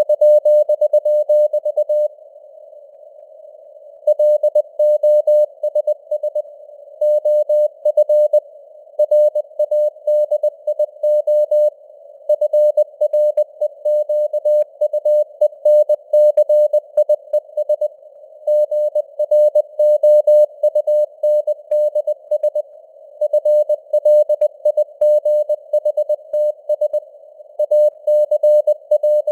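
Morse code (CW) sent at 20 words per minute: a single steady beep keyed on and off in dots and dashes, with short gaps between words. It sits in a narrow band of simulated radio hiss, with the signal strength varying (QSB).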